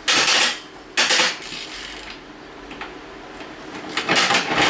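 Broken Harbor Freight ratchet worked by hand, its overloaded pawl mechanism no longer holding: metallic clicking and rattling, loudest at the start, again about a second in, and near the end.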